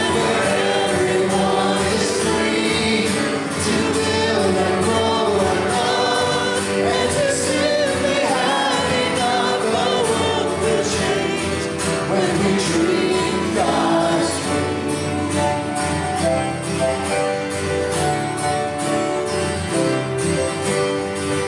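A congregation singing a gospel-style song along with a male lead singer, accompanied by piano and guitar.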